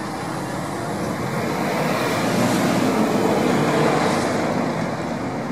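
Rushing noise of a passing vehicle, swelling to its loudest about three seconds in, then fading.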